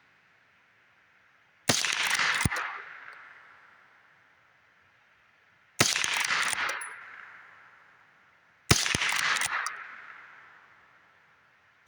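Three rifle shots from a Winchester Model 9422 lever-action .22 LR firing CCI Mini-Mag hollow points, about four and then three seconds apart. Each is a sharp crack followed by a fading echo, with a short click soon after the first and the last shot.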